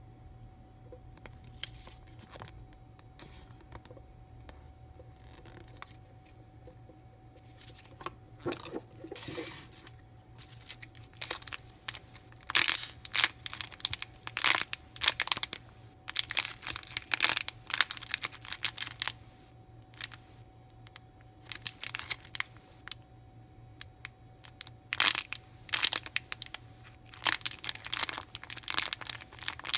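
Plastic packaging being handled and torn open: about eight seconds of faint clicks, then irregular bursts of crinkling and tearing for most of the rest, over a faint steady hum.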